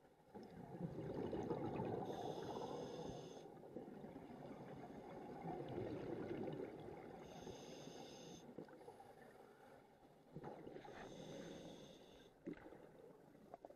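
Diver breathing through a scuba regulator underwater: exhaled bubbles rumbling and bubbling, broken by three hissing inhales through the regulator, about two, seven and eleven seconds in.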